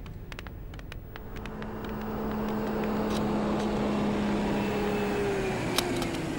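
A car driving up and pulling to a stop: engine and tyre noise growing louder from about a second in, holding, then easing off near the end. A few light clicks in the first second.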